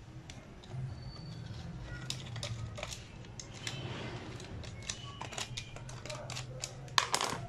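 Small screwdriver clicking and scraping against tiny screws and the plastic base of an HP 6360p laptop as the keyboard-retaining screws are undone, with a sharper cluster of clicks near the end.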